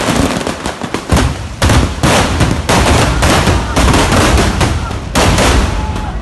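A barrage of fireworks and firecrackers going off in rapid succession: a continuous dense crackle, with louder volleys of bangs breaking in every second or so.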